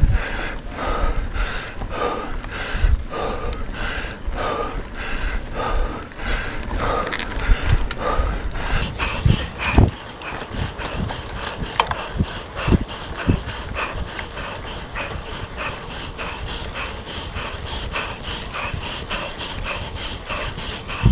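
A mountain biker panting hard and rhythmically, about one and a half breaths a second, from the effort of pedalling up a steep climb, with a low rumble of wind and tyres underneath.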